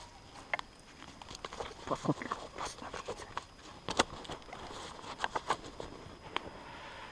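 Footsteps crunching through dry fallen leaf litter, an irregular series of rustles and sharp cracks from leaves and sticks underfoot, the loudest crack about four seconds in.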